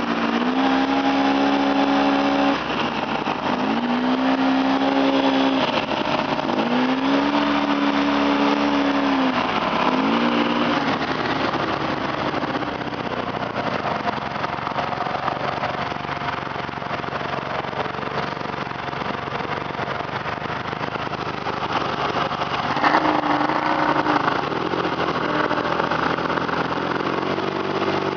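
ATV engine revving up and down several times, then running more steadily under rougher noise, with one sharp knock about three quarters of the way through.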